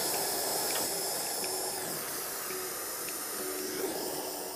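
Small mini torch flame hissing steadily while it heats and shrinks a heat-shrink butt connector on a wire.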